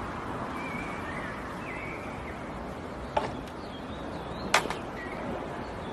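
Parts of an open sports car being handled, a body panel and a detachable steering wheel: two sharp clicks about a second and a half apart over steady outdoor street noise.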